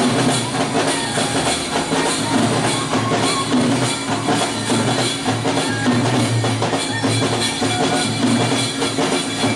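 A street procession band playing loud music with drums keeping a steady beat.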